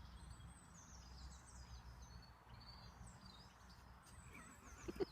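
Faint chirping of small birds, short high calls and quick falling notes, over a quiet background hum. Right at the end a quick run of louder, pitched pulses begins.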